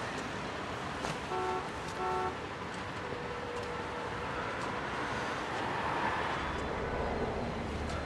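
City street traffic noise, a steady wash of passing cars, with two short honks of a vehicle horn about a second and a half in.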